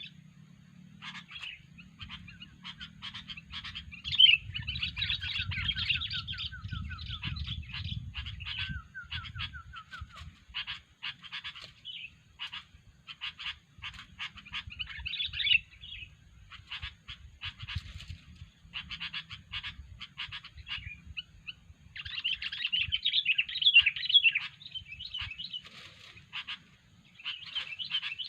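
Sooty-headed bulbul (kutilang) calling: a long run of short, quick chirps broken by several bursts of fast chattering song, over a steady low hum.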